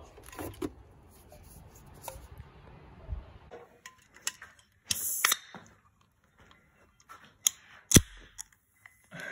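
Aluminium drink can being handled and opened by its pull tab: a few light clicks and knocks as it is picked up and set down, then one sharp crack about eight seconds in as the tab breaks the seal.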